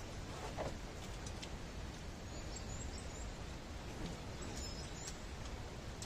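Steady outdoor background noise, with a few faint, short bird chirps.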